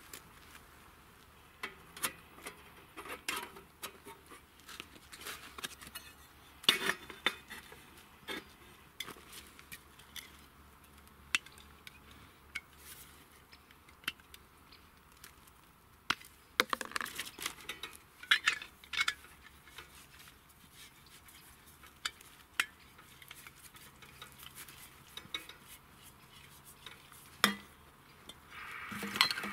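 Scattered clinks, clicks and knocks of metal and ceramic as a Skotti folding steel grill is put together and a ceramic pizza stone is laid on it. A steady hiss starts just before the end.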